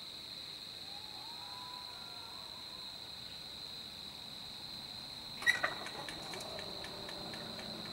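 Night insects chirring in one steady high-pitched drone. About five and a half seconds in, a sharp double click is followed by a few lighter ticks, and a faint low hum of the approaching train's locomotive comes in.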